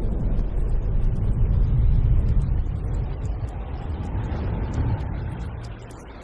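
Deep, heavy rumble that dies away over the last couple of seconds.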